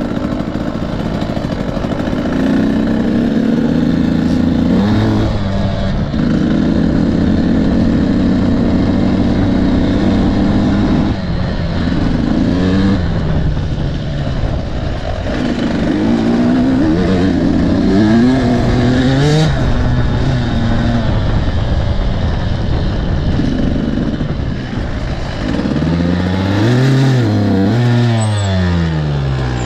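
300 cc two-stroke TPI enduro motorcycle engine being ridden hard, its pitch climbing and dropping again and again as the throttle is opened and closed through the gears, with several quick up-and-down revs near the end.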